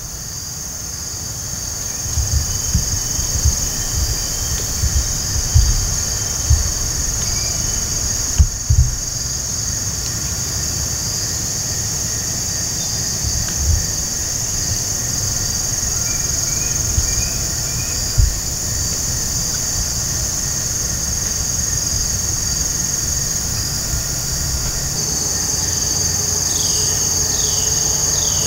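Steady high-pitched chorus of insects in the woods, with irregular low thumps and rumble on the microphone through the first two-thirds. Near the end, a few short, falling chirps come quickly one after another.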